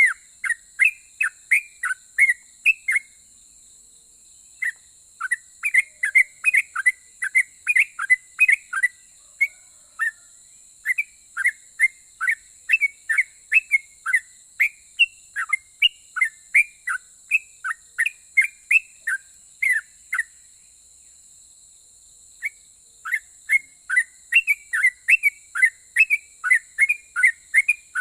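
Yellow-vented bulbul (trucukan) singing: long runs of quick, short, sharp notes, about three a second, broken by two short pauses. A faint steady high-pitched hiss runs underneath.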